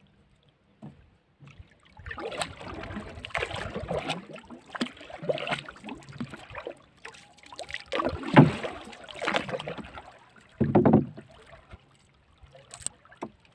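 Wet nylon handline being hauled hand over hand into a small boat, with irregular splashing and dripping of water. A louder thud comes about two-thirds of the way through and another near the end.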